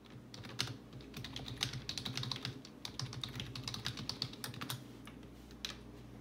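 Typing on a computer keyboard: a quick, uneven run of keystrokes that stops about five seconds in, followed by one last keystroke. A low steady hum sits underneath.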